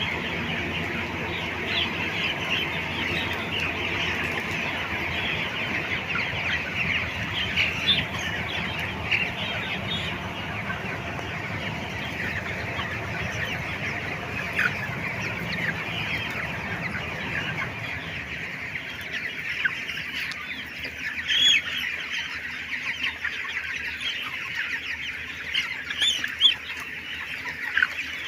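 A flock of poultry-farm chickens clucking and chattering continuously as they feed, many birds calling at once with a few sharper calls standing out. A low background hum stops about two thirds of the way through.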